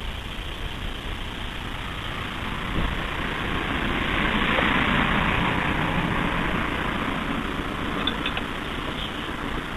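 Coleman Peak 1 backpacking stove burning kerosene with a large yellow preheat flame: a steady rushing burner noise that swells louder through the middle and eases off again. A few small metallic clicks near the end as the stove is handled.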